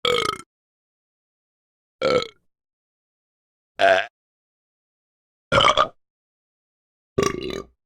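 Five short burps, each under half a second and spaced about one and a half to two seconds apart, cut one after another with dead silence between them.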